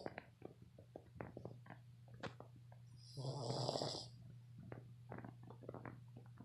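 A sleeping Boston Terrier snoring. There is one long snore about three seconds in, the tail end of another at the very start, and small clicking, snuffling sounds between them, over a steady low hum.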